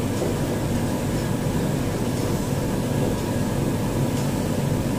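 Steady low rumbling hum of background machine noise in the room, with a few faint scratches of a marker writing on a whiteboard.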